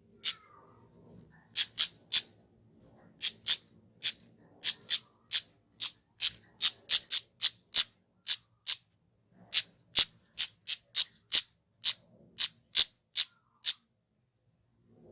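Flowerpecker (kemade) calling: short, sharp, high chip notes repeated in quick runs of two to several, with short pauses between runs. The calling stops about a second and a half before the end.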